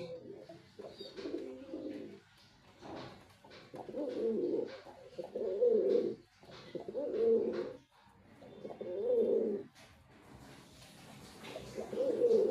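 Male domestic pigeon cooing: a string of low, rolling coos, each about a second long, with short pauses between them.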